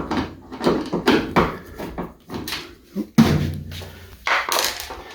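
Clicks and knocks of the two rear screws holding a washing machine's top panel being undone, with the loudest knock about three seconds in.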